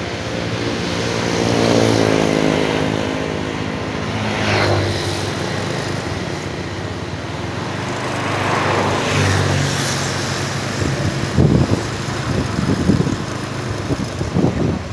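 Large vehicles passing on a road, engine and tyre noise swelling and fading twice, with several short loud bursts near the end.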